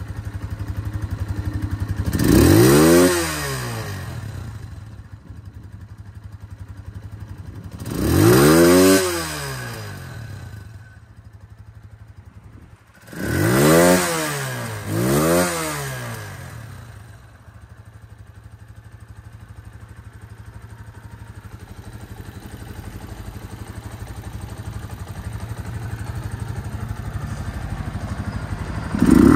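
Gilera Full Power 150's 149 cc single-cylinder, air-cooled four-stroke engine idling and revved four times, each blip rising and falling back to idle: about three seconds in, about nine seconds in, then twice in quick succession around fourteen and fifteen seconds. It then idles steadily.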